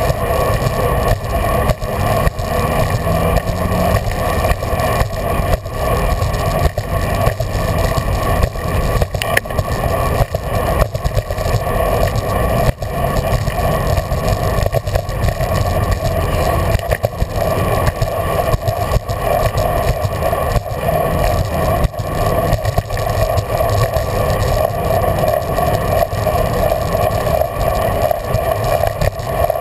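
Steady road and wind noise from a bicycle rolling along a paved path, heard through a camera mounted on the bike, with frequent small knocks and rattles as it goes over bumps in the pavement.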